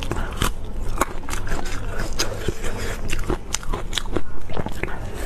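Close-miked eating: biting and chewing of a crusty stuffed bun, with many sharp, irregular crackling clicks.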